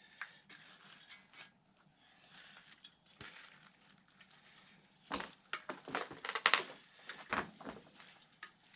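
A scattering of clicks, creaks and knocks, sparse at first and bunched together from about five seconds in.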